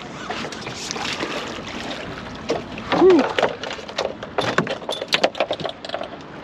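Sheepshead flopping on a boat deck: a rapid, irregular run of knocks and slaps from about three and a half seconds in, over a steady hiss of wind and water. A short grunt comes just before the knocks start.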